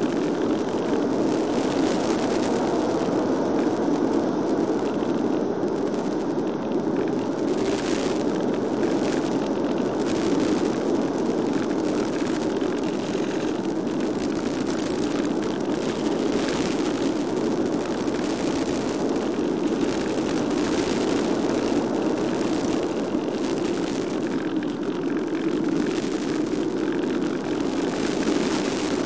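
Steady rushing wind noise from air streaming past an RC plane's onboard microphone as it glides with the motor off, with scattered brief crackles.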